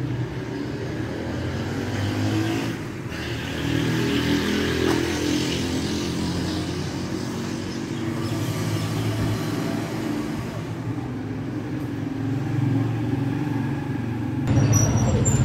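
A motor vehicle engine drones steadily, swelling about four seconds in and again near the end.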